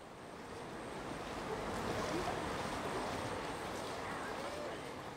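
A steady rushing outdoor noise swells to its loudest about two to three seconds in and then fades, with a few faint wavering tones in it.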